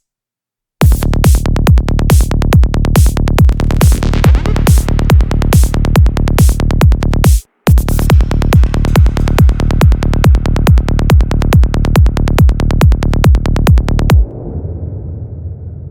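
Dark psytrance track with a fast, steady kick drum and rolling bassline. It drops out for a moment at the start and again briefly near the middle, then stops abruptly near the end, leaving a low fading tail.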